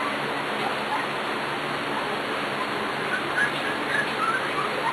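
Steady background hiss, with a run of short, faint high squeaks from three-week-old Pembroke Welsh corgi puppies in the second half.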